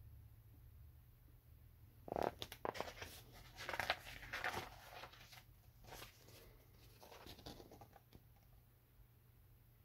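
Paper pages of a picture book rustling and crackling as they are handled and turned, a run of rustles and sharp clicks that starts about two seconds in and dies away about eight seconds in, loudest near its start.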